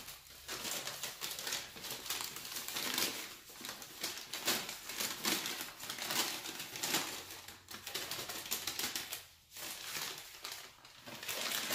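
Crumpled newspaper being unfolded and shaken out by hand, a run of irregular crinkling, rustling crackles with a short lull near the end.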